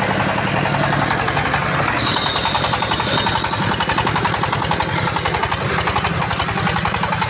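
Engine of a homemade 4×4 tractor running steadily, with an even, rapid beat.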